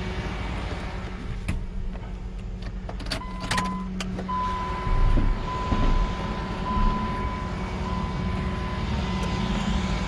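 Vehicle engine running steadily, with a few sharp clicks in the first four seconds and a thin, steady high tone starting about three seconds in and holding almost to the end.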